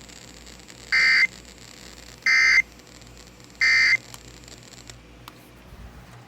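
Emergency Alert System (SAME) end-of-message data bursts from NOAA Weather Radio: three short, identical electronic screeches about a second apart. They are the signal that the alert message has ended.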